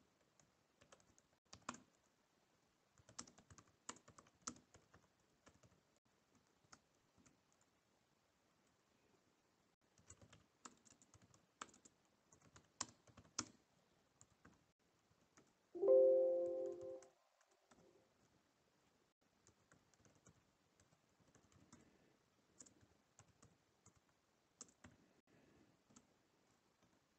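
Computer keyboard typing in scattered bursts of keystrokes as terminal commands are entered. About 16 seconds in, a brief tone of about a second stands out as the loudest sound.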